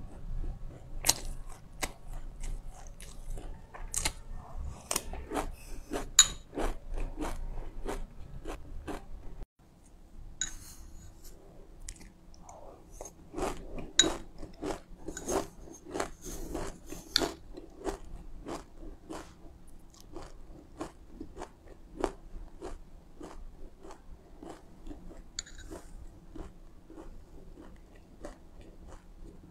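Close-up chewing of a mouthful of dry black and white sesame seeds: a steady run of short, crisp crunches, about two to three a second, with an abrupt break about nine seconds in.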